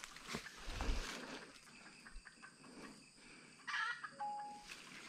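Footsteps rustling through undergrowth, then about three and a half seconds in a short animal call that ends in a brief steady tone.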